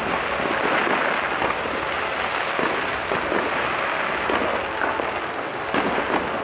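Fireworks display: a dense, steady run of many small rapid bangs over a continuous hiss, with a few sharper bangs about six seconds in.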